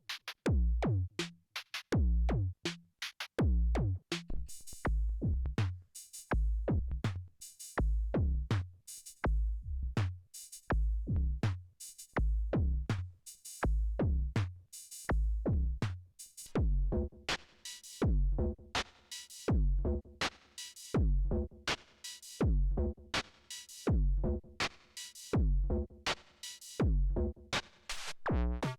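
Erica Synths Perkons drum machine playing a simple looped drum pattern with traditional drum-machine sounds: a punchy kick drum, snare and hi-hat hits in a steady rhythm. About halfway through, the sound changes as a different kit comes in.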